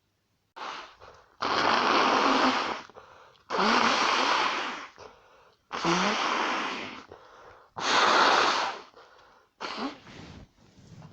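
A person blowing their nose hard into a tissue four times in a row, each blow well over a second long, with a few shorter blows near the end.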